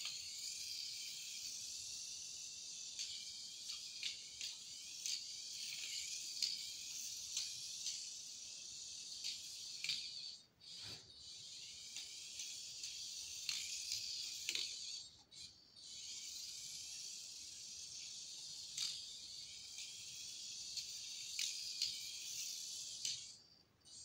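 High-pitched whine of a Turbo Racing C75 1:76 micro RC car's electric motor and drivetrain as it laps the track, cutting out briefly twice and stopping near the end, with scattered sharp ticks.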